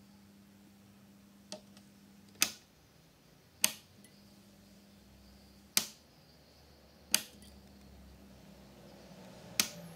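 Philips PL-S 11W compact fluorescent lamp circuit humming steadily at mains frequency until a sharp switch click about two and a half seconds in cuts the hum. Four more sharp clicks follow, a second or two apart, as the lamp is switched off and on again.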